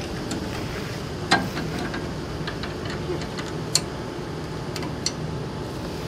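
Gas engine of a hybrid remote-control mower running steadily, with a few sharp metallic clicks as the cutting-deck height lever is moved to a lower setting; the loudest click comes about a second in, and others near the middle and end.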